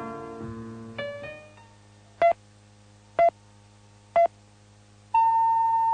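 Keyboard music fades out, then a radio time signal sounds: three short beeps a second apart, followed by a long, higher-pitched tone marking the hour.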